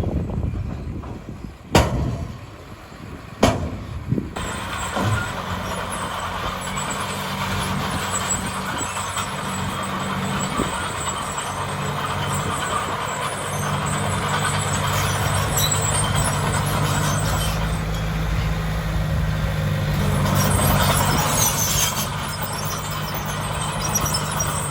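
Heavy diesel engine of a dump truck or bulldozer running steadily. It gets louder for a couple of seconds near the end, and two sharp knocks come in the first few seconds.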